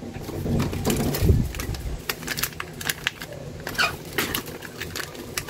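Hands handling small product packaging: scattered rustles, taps and clicks of plastic wrapping as a package is opened, with heavier handling noise in the first two seconds.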